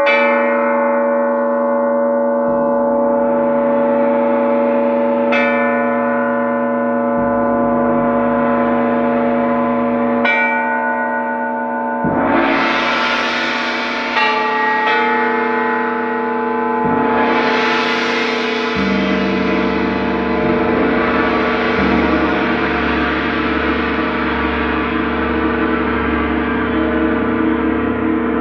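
Struck metal percussion, gongs and bells, ringing in a long overlapping wash of sustained tones, with a new strike every few seconds. About halfway through, two big shimmering swells build, and after them a deep low hum joins the ringing.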